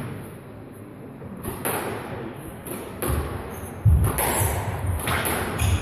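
Squash rally: the ball struck back and forth with sharp racket hits and smacks off the court walls, with several heavy thuds, the loudest about four seconds in.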